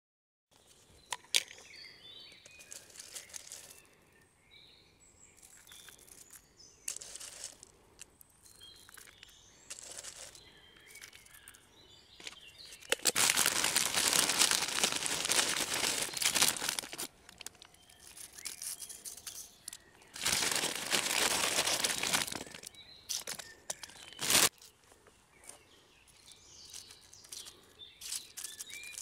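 Crinkly plastic snack bags rustling in two long stretches as crispy fried onions and then potato crisps are shaken out. Birds chirp faintly in between, and there are a few light knocks, one sharp click near the end.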